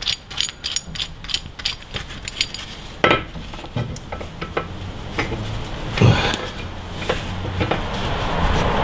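Metal hand tools clinking and knocking against the front upper control arm and ball joint of a Honda Civic inside the wheel arch: a scatter of light clicks with two louder knocks about three and six seconds in, over a steady low hum, and a rustling scrape rising near the end.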